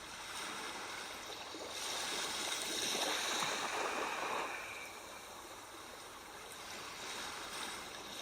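Sea waves washing in and receding: one swell builds and peaks a few seconds in, then eases, and another begins to build near the end.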